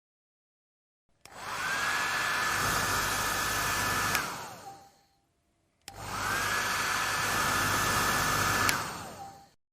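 Hair dryer switched on twice, each time with a click: the motor whine rises to a steady high pitch over a rush of blowing air, runs for about three seconds, then falls away as the dryer is clicked off and winds down.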